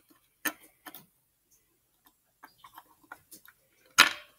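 Small plastic Lego pieces being handled and snapped together, giving scattered light clicks and taps, followed near the end by one louder sharp knock.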